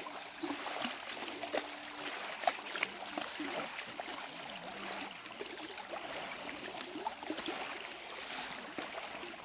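Water lapping and splashing in the shallows at a lake's edge as a dog wades, with many small irregular splashes.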